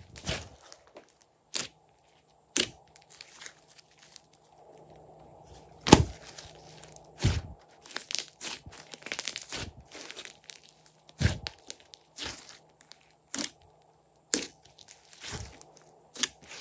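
Hands squeezing and pressing glossy slime, making irregular sharp pops, clicks and crackles as trapped air is squeezed out. The loudest pop comes about six seconds in.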